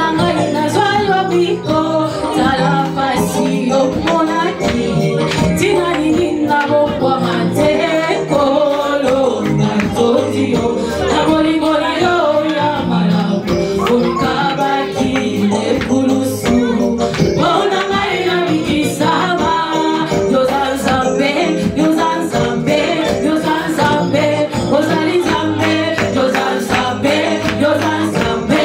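Church worship music: voices singing over a band, with tambourine and percussion strikes keeping the beat.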